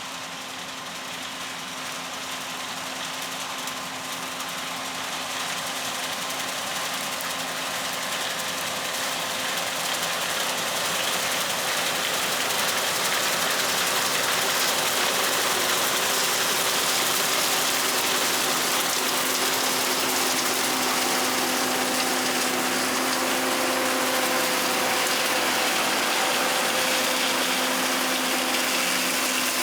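John Deere combine harvesting soybeans, heard from the cab: a steady machine hum with a mechanical rattle of the threshing and header drives. It grows louder over the first dozen seconds, then holds steady.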